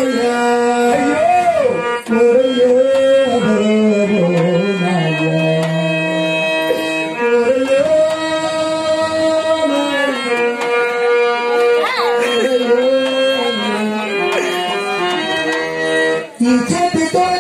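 Burrakatha folk singing: a singer holding long notes that slide up and down, with drum accompaniment.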